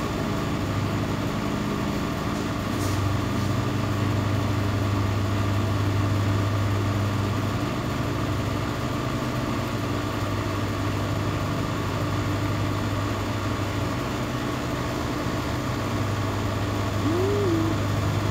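Steady low mechanical hum of a running motor, unchanging throughout. A short rising-and-falling tone sounds once near the end.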